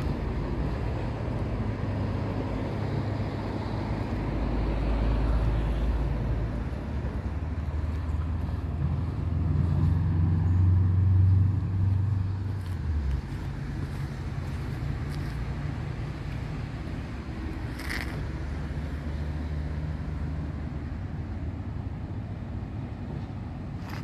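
Steady rumble of motor traffic with a low engine hum that grows louder about ten seconds in, then falls away abruptly a couple of seconds later. A single short click comes about three quarters of the way through.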